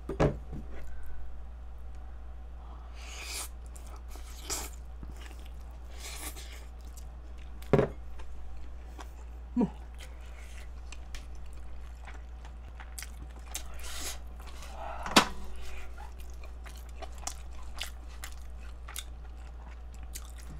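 Close-miked chewing and mouth sounds of a person eating kimchi fried rice, with a few sharp clicks of a plastic spoon against the frying pan and a steady low electrical hum underneath.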